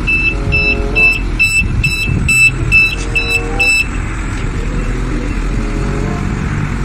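Large forklift's engine running while its reversing alarm beeps about twice a second, a sign that the forklift is backing up; the beeps stop about four seconds in and the engine carries on.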